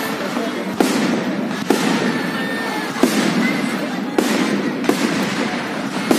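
Fireworks display: a continuous dense crackling from glittering shell bursts, with a sharp bang roughly every second, six in all.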